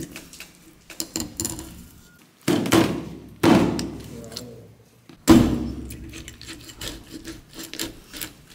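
Large kitchen knife cutting through a scaled amadai (tilefish) down its back, crunching and scraping through scales and bone. Three louder knocks of the blade on the cutting board come about two and a half, three and a half and five seconds in.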